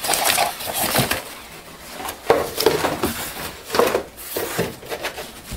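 Cardboard being handled: a cardboard accessory box full of papers is lifted out of a shipping carton and set aside, with irregular rustling and scraping and a few sharp knocks, the sharpest a little over two seconds in.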